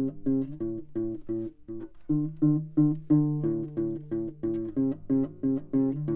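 Instrumental music: guitar-like plucked notes picked in a steady repeating pattern, about three to four a second, over lower bass notes.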